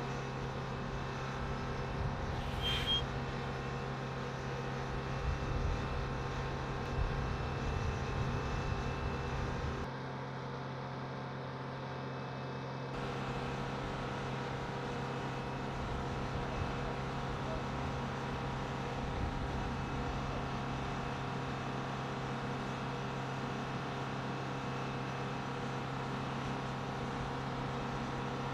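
Flight-line ground support equipment running with a steady, unchanging engine hum. It dips slightly for about three seconds near the middle.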